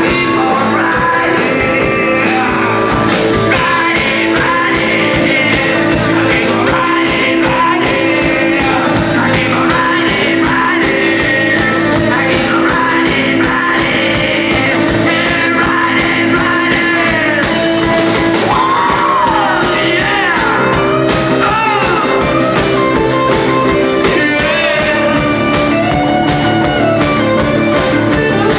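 Rock band playing live with a singer, the music continuous and loud.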